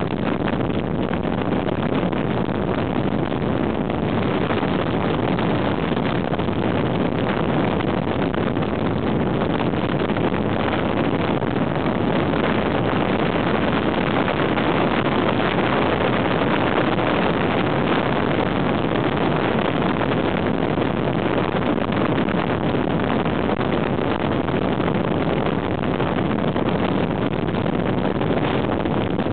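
Motorcycle riding at a steady road speed: the engine's drone mixed with wind rushing over the microphone, unbroken throughout.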